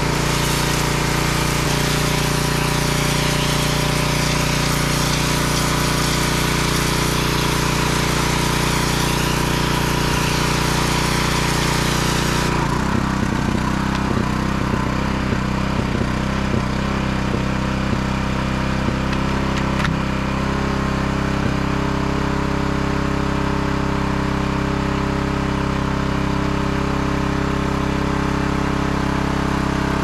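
Gas-powered pressure washer's engine running steadily, with the hiss of the water jet spraying; the spray stops about twelve seconds in while the engine runs on, and a few light knocks follow.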